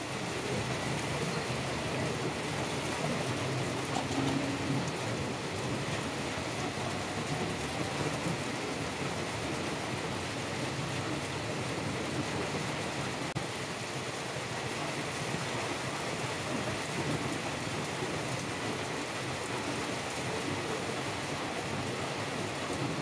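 Blowtorch burning with a steady, even hiss.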